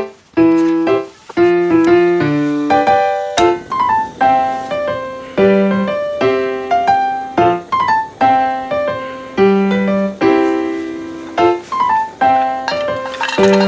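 Background music: a piano melody of short, struck notes in a steady rhythm.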